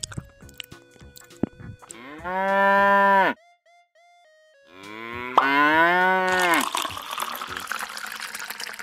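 A cow moos twice in two long moos, the second starting about a second and a half after the first ends. Near the end comes the rush of liquid pouring into a tub, over light plinking background music.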